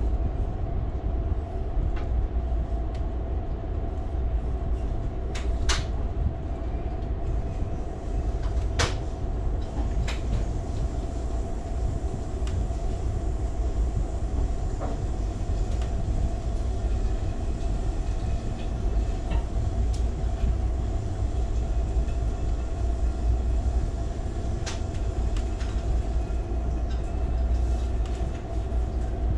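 Ride noise inside an Amtrak passenger railcar rolling along at speed: a steady low rumble with a constant hum, broken by a few scattered sharp clicks.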